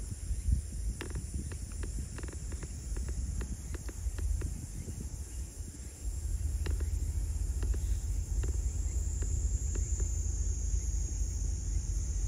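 Waterside outdoor ambience: a steady low rumble under a steady high-pitched hum of insects, with scattered sharp clicks through the first half.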